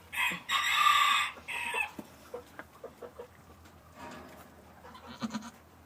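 A loud farm-animal call, a little over a second long and broken into three parts, followed about four seconds in by quieter, lower calls.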